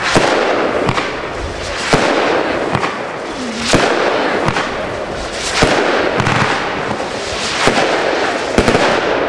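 A 25-shot Lesli 'Titty Twister' firework battery firing, with sharp bangs about every two seconds and a steady hiss between them.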